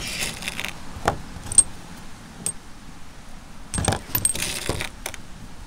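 Metal dummy .45 Colt cartridge cases clinking against one another as they are picked over in a cardboard box: a few light, ringing clicks, then a short burst of clinks and rummaging about four seconds in.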